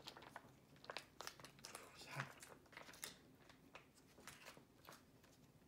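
Faint crinkling and rustling of a foil MRE entree pouch being handled, in scattered short crackles.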